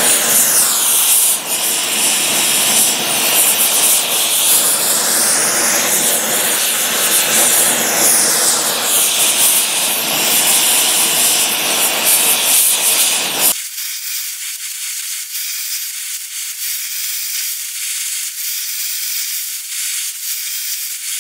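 Oxy-fuel torch flame hissing steadily as it preheats a cracked cast iron exhaust manifold before welding. About two-thirds of the way through, the fuller sound cuts off suddenly and a thinner, higher hiss carries on.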